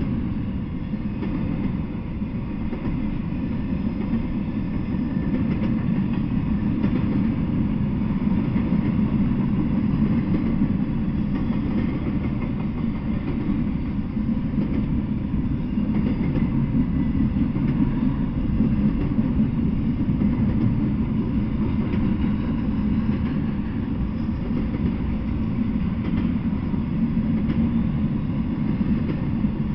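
Double-stack intermodal freight train rolling past on well cars: a steady low rumble of steel wheels on the rails.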